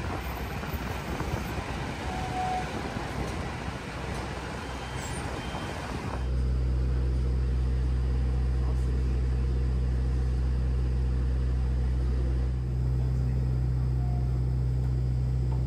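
A running vehicle's steady low rumble that starts abruptly about six seconds in, after a stretch of broad, noisy background sound.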